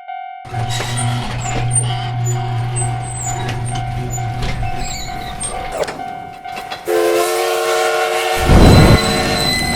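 Railroad crossing alarm bell ringing about twice a second while a train runs past, with a low rumble and rail clicks. About seven seconds in a train horn sounds, followed by a loud burst of noise.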